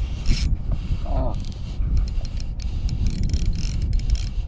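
Wind buffeting the microphone out on open sea: an uneven low rumble with patchy hiss. A short voice sound comes about a second in.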